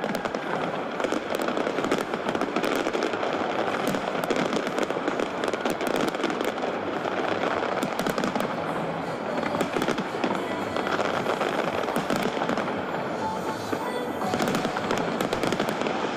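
Big fireworks display: a dense, continuous mass of overlapping crackles, pops and bangs.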